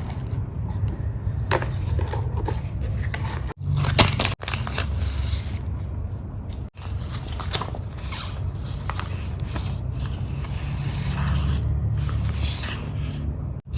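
Scissors cutting paper, with paper being handled and scraped in short, irregular strokes, the loudest about four seconds in, over a steady low rumble.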